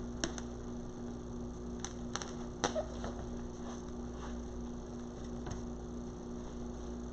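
Steady electrical hum, with a few faint, short clicks and taps scattered through it as small objects are handled.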